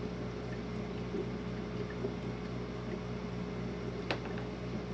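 A snail shell being dipped and shaken in a plastic beaker of water, with faint water sloshing over a steady low mechanical hum. A light knock about four seconds in as the shell is set down on the table.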